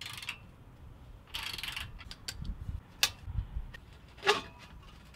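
Socket ratchet clicking as a 10 mm bolt on an exhaust tip's mounting bracket is backed out, then a few sharp knocks as the loosened metal tip is worked off the tailpipe, the loudest about four seconds in.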